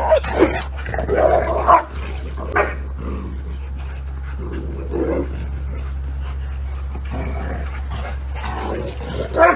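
Dogs barking during rough play, in short separate bursts: a cluster in the first two seconds or so, one about five seconds in and another near the end, over a steady low hum.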